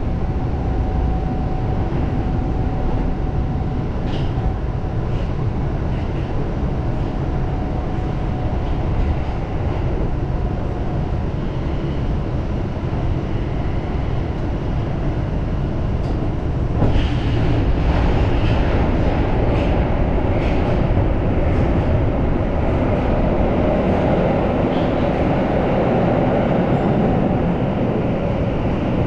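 Tokyo Metro Marunouchi Line subway train running through a tunnel, heard from inside the front car: a steady rumble of wheels on rail. A run of sharp clicks from the track comes a little past halfway, where the running grows slightly louder.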